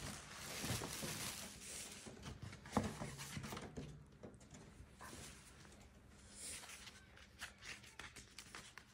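Tissue paper rustling and crinkling as it is pulled out of a paper gift bag, followed by softer paper rustles and light ticks as a card envelope is handled.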